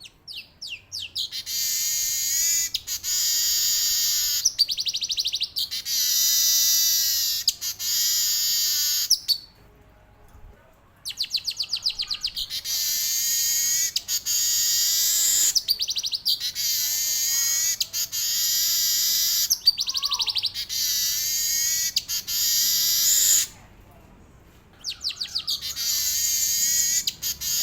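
Male weaver bird (manyar) singing long, rapid, buzzy rolling song phrases of fast repeated high notes. Each bout opens with scattered ticks that speed up into a sustained rattle lasting several seconds. It breaks off twice, at about ten seconds and again near twenty-four seconds, then starts again.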